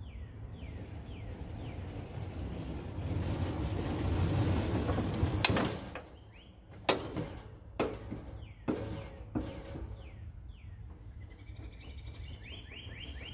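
Small-gauge locomotive rumbling up the siding, then its spring-loaded coupler striking the steel buffer stop with one sharp clank about five seconds in; the buffer stop takes the hit at low speed and the coupler spring absorbs the force. Four or five lighter metal clanks follow over the next few seconds, with birds chirping throughout.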